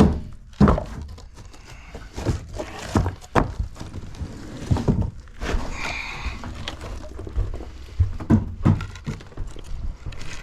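Irregular knocks and heavy thuds of old mobile home flooring being pried and broken out, some blows much louder than others.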